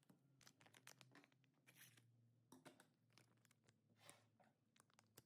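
Faint crackling and crinkling of the plastic vacuum-pack film on smoked salmon slices as fingers press it and peel it back: a rapid, irregular scatter of small crackles.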